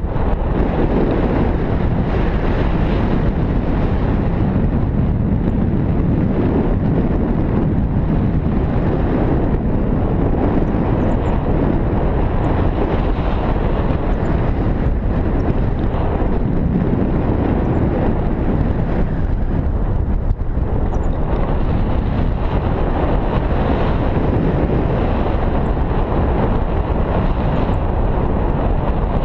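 Loud, steady wind noise from the airflow buffeting the microphone of a pole-mounted action camera in flight under a tandem paraglider.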